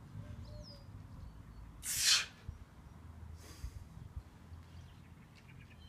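A weightlifter's sharp, forceful breath out about two seconds in, as he drives a heavy barbell front squat up from the bottom. A fainter breath follows about a second and a half later. The strain is that of a near-limit rep.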